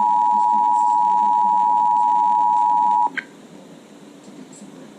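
Emergency Alert System two-tone attention signal (853 and 960 Hz sounded together) heard over the radio, the warning that an emergency alert message follows. It holds steady, then cuts off abruptly about three seconds in, followed by a brief chirp and low radio hiss.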